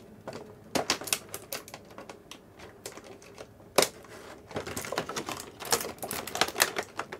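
Clear plastic blister tray of action-figure packaging clicking and crackling as it is handled and flexed, with one sharp snap about four seconds in.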